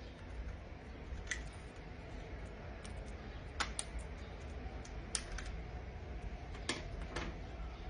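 Small hand tool clicking and scraping on an iPhone 11's bottom screw, sharp ticks at irregular intervals, while a stripped screw is dug out by hand.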